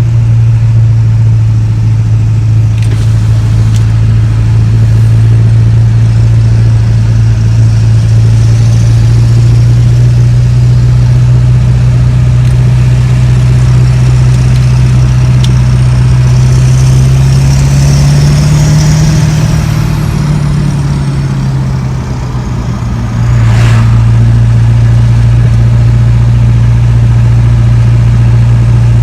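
A 7.3 L Power Stroke turbodiesel V8 in a 2000 Ford Excursion, heard from inside the cab while driving: a steady, loud exhaust drone. About two-thirds of the way in, the drone rises slightly with a high whistle over it, then drops for a couple of seconds before the steady drone returns.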